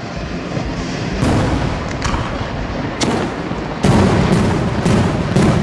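Aerial firework shells bursting in a series of about seven booms, each trailing off in a low rumble, coming faster in the second half.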